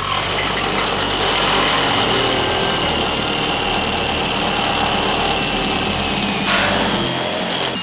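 Electric power drill running under load, drilling through the VW T6 van's steel roof panel, with a steady high whine. The whine shifts in pitch about six and a half seconds in.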